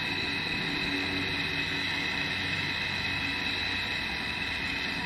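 Hand-held propane torch burning with a steady hiss, heating an aluminum part for brazing.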